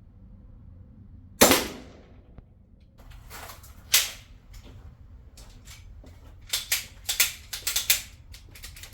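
STI 2011 Combat Master airsoft pistol firing at a paper target: a loud shot about a second and a half in, another about four seconds in, then a quick run of fainter sharp cracks near the end.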